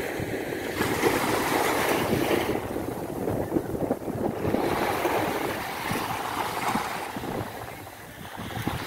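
Sea waves breaking and washing up a sandy beach, the surf swelling and easing twice and dropping back near the end.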